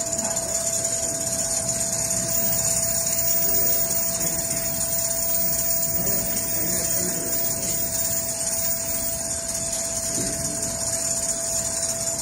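Large-format CNC sewing machine running, a steady mechanical hum with a constant motor whine that winds down at the very end.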